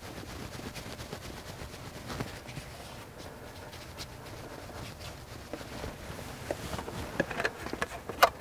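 Faint rubbing of a cloth wiping down a truck's door frame with alcohol, with a few light clicks and handling scrapes near the end.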